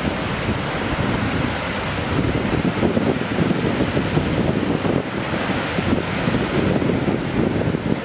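Big Sioux River waterfall pouring over rock ledges: a steady, unbroken rush of falling water.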